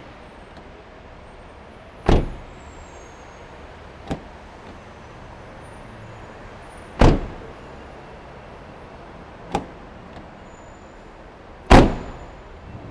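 Car door of a compact hatchback opened and slammed shut three times, about five seconds apart. Each slam comes a couple of seconds after the sharp click of the handle and latch as the door is opened. The slams echo off the concrete of the parking garage over a steady background hum.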